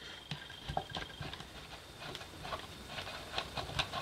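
Faint, scattered light clicks and taps of fingers and a screwdriver handling a screwed-on metal cover plate, a few a second.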